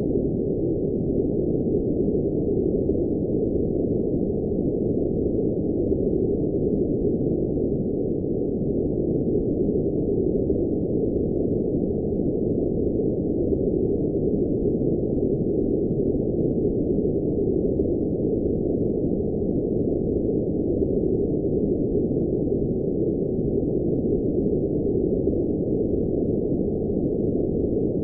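Steady generated background noise, a dull, muffled hiss with no high end, heaviest in the low middle range and completely even throughout.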